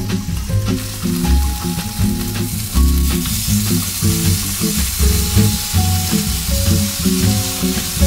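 Yoghurt-and-tandoori-marinated chicken thighs sizzling on a hot ridged grill pan as pieces are laid in, the sizzle building from about a second in. Background music with a steady bass beat plays throughout.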